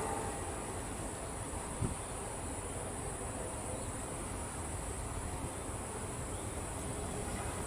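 Insects calling in a steady high-pitched drone, with a low rumble of wind underneath and one short knock about two seconds in.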